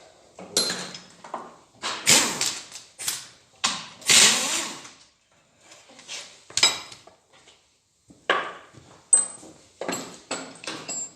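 Socket wrench working a 12 mm bolt loose, ratcheting in short runs, with sharp metal clinks of tools and bolts in between.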